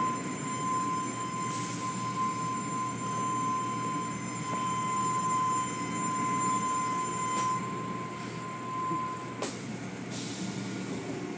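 Automatic tunnel car wash machinery running: a steady low rumble under a high, steady whine that cuts off about nine seconds in. Short hisses come twice, once early and once near the end.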